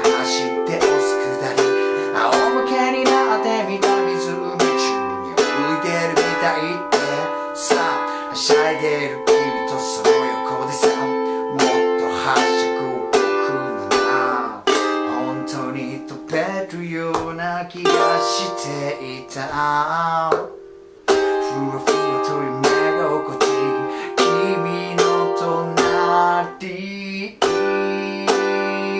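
Small, thin G-Labo Gazz-model ukulele strummed in a steady rhythm, ringing chord after chord. The playing breaks off briefly about three quarters of the way through, then resumes.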